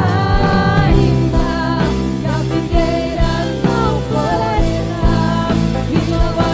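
Live band playing a worship song on electric bass, drum kit and keyboards, with a voice singing the melody over it.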